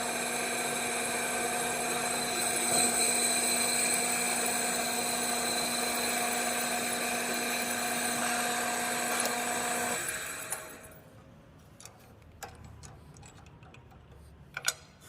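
Drill press running with a 118-degree high-speed-steel drill bit pressed hard into a hardened excavator bucket pin, a steady whine made of several fixed tones. It winds down about ten and a half seconds in, leaving a few light clicks.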